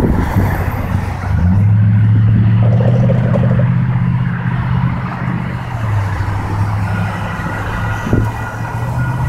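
A vehicle running past with a steady low drone, joined near the end by thin, high, steady tones.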